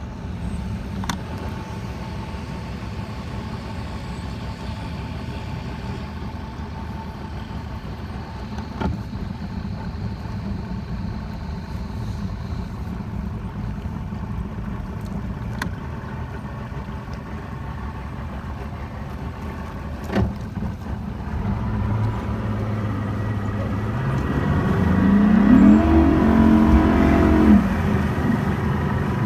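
Bass boat's outboard motor running low and steady with a few scattered knocks, then throttled up late on, rising in pitch and getting louder as the boat is driven up onto its trailer, before easing back near the end.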